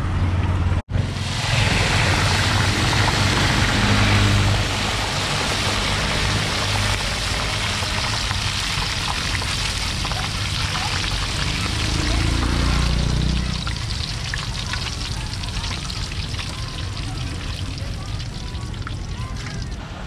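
Crickets and other insects deep-frying in a large wok of hot oil: a steady, loud sizzle over a low hum. The sizzle eases off about thirteen seconds in, leaving a quieter crackle.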